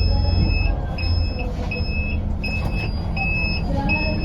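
A string of high-pitched electronic warning beeps, about three every two seconds, over the low steady rumble of a TransJakarta bus's engine.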